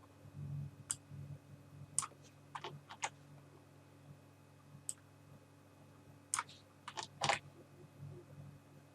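Irregular computer mouse and keyboard clicks, a dozen or so short clicks with a quick bunch of them about two-thirds of the way through, over a low steady hum.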